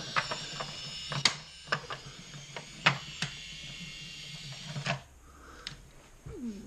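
Small plastic Lego pieces being handled, giving a scatter of sharp clicks and light clatter several seconds apart, over a faint low hum that stops about five seconds in.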